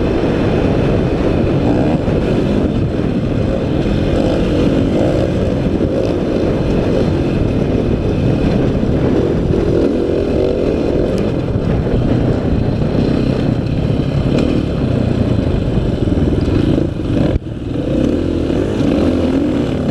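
Dirt bike engine running under throttle while riding, mixed with heavy wind rush on the microphone. The sound briefly drops near the end, then picks up again.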